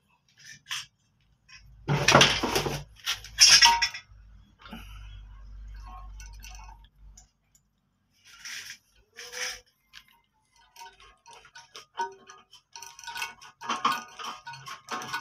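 Hand tightening the tank-to-bowl bolt under a ceramic toilet tank: scattered clinks and scrapes of porcelain and plastic fittings, with two louder knocks about two and three and a half seconds in.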